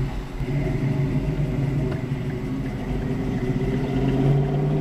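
Modified Chevy II drag car's loud, unfiltered exhaust with a low, pulsing note, growing louder near the end as the car pulls away through an intersection, heard through open car windows.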